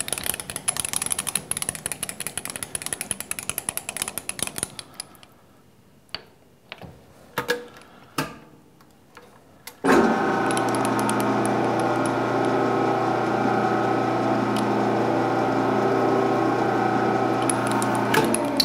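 A rapid run of clicks for about five seconds, then a few scattered clicks. About ten seconds in, a metal lathe's spindle motor starts with a jolt and runs at a steady hum until near the end, when it shuts off.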